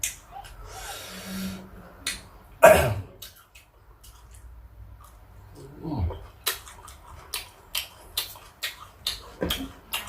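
Close-up eating sounds: a person chewing and crunching fruit, with many sharp clicks that come thickly in the second half. Two sounds fall in pitch, about a quarter of the way in and again past the middle.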